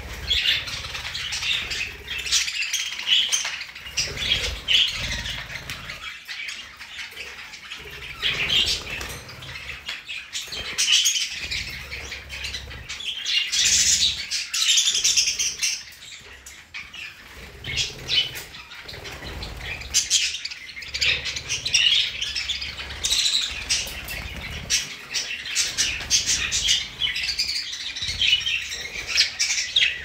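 A flock of budgerigars chattering and warbling continually in an aviary, with bursts of wing flapping as birds flutter between perches.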